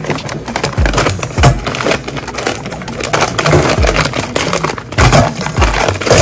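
Plastic bag of frozen raw shrimp crinkling as it is cut open with scissors and emptied, with frozen shrimp clinking into a stainless steel bowl. Background music with deep bass thuds that drop in pitch runs underneath.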